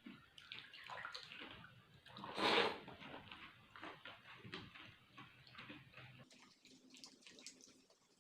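People eating pani puri, with small crisp crunches and wet mouth sounds from the puris and their spiced water, and one louder slurp about two and a half seconds in.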